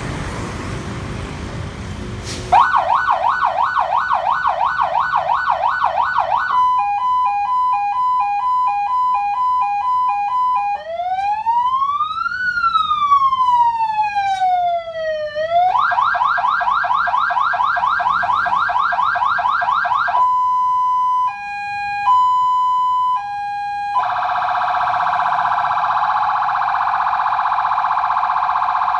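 Electronic vehicle siren demonstrated through its tones: a fast yelp, a rapid two-note hi-lo, one slow wail rising and falling, the yelp again, a slower hi-lo, then a steady buzzy horn-like tone for the last few seconds. A rushing noise fills the first two seconds or so before the siren starts.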